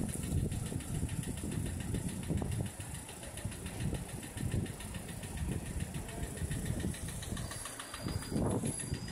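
Street traffic: a vehicle engine running nearby, a steady low rumble.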